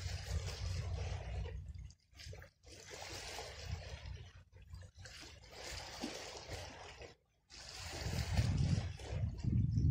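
Sea water lapping and washing against the rocks of a breakwater, a hiss that swells and fades in waves, with wind buffeting the microphone as a low rumble at the start and again near the end.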